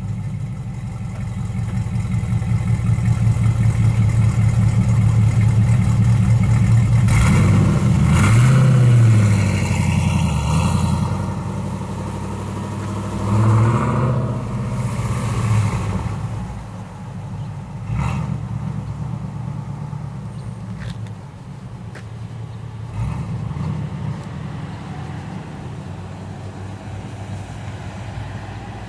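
V8 muscle car with an aftermarket exhaust running loud, rising in pitch and falling back in two rev sweeps about a third and half of the way through. It then settles to a lower, quieter drone for the rest.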